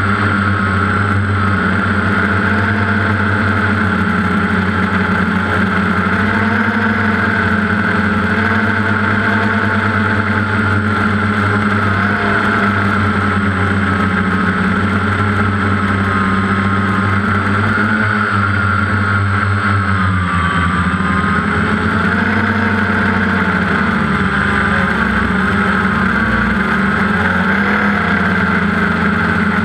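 DJI Phantom quadcopter's motors and propellers humming steadily, heard close up from the camera it carries. The pitch wavers slightly and shifts about two-thirds of the way through.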